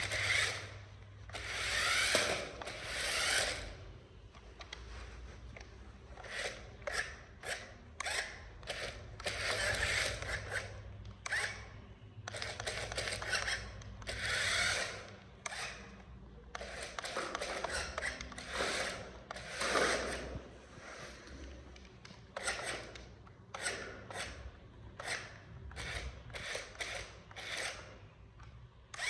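Irregular scraping, rubbing and clicking of plastic toy vehicles being handled and pushed over a rough course surface, with a faint low hum underneath.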